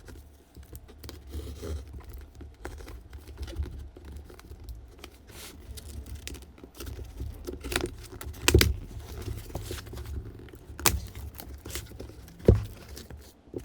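Cardboard box and packaging being opened and handled: rustling, scraping and scattered clicks, with a few sharper knocks in the second half.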